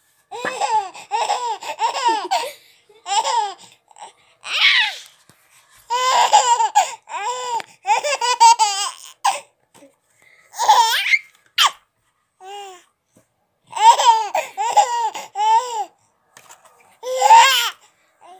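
A baby laughing in high-pitched runs of quick 'ha-ha-ha' bursts. Several runs of a second or two each come between short pauses.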